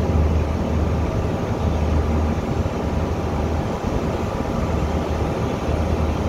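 A river passenger ship under way: a steady low engine drone with a rushing noise of water and air over it.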